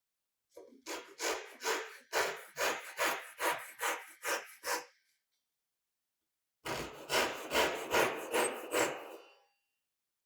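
Handsaw cutting wood with steady back-and-forth strokes: a run of about ten strokes, a short pause, then about seven more.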